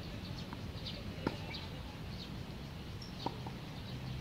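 A tennis racket strikes the ball twice in a rally, two sharp pops about two seconds apart, with birds chirping steadily in the background.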